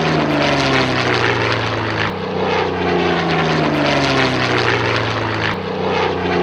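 Propeller aeroplane engine drone with a slowly sliding pitch. It restarts twice, like a looped sound effect.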